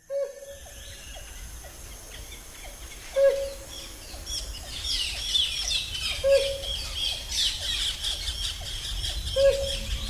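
Birds calling in tropical forest: a short, low call repeats about every three seconds, four times, and from about four seconds in many high chirps and whistles join over a low background hum.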